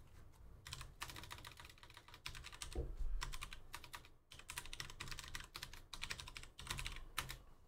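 Typing on a computer keyboard: fast runs of key clicks broken by short pauses.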